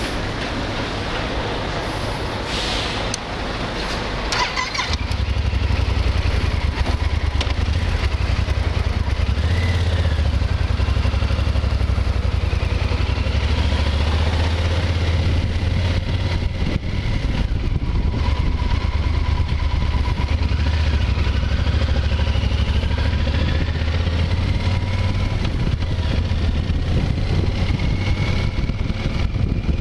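Motorcycle engine running at a standstill, with a few clicks about three to four seconds in. It then pulls away about five seconds in and runs under load as the bike rides off, a low steady rumble that stays louder to the end.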